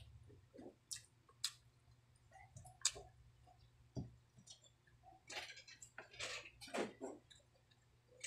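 Mouth sounds of someone eating chicken afritada and rice by hand: faint, scattered wet clicks and smacks of chewing, with short gaps between them.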